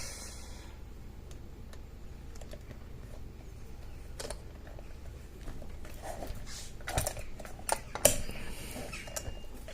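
Scattered small clicks and taps of lock-picking tools being handled and worked into a disc detainer padlock, a few a second at most and strongest near the end, over a steady low hum.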